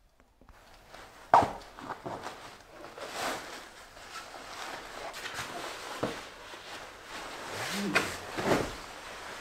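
Nylon sleeping bag rustling and swishing as it is handled and spread over a sleeping pad, with a sharp knock about a second in.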